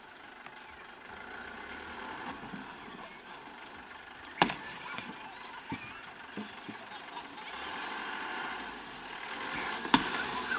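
Insects droning steadily at a high pitch, with faint voices in the background. Two sharp knocks stand out, the first and loudest about four and a half seconds in and the second near the end, and a brief high whistle-like tone sounds for about a second around eight seconds in.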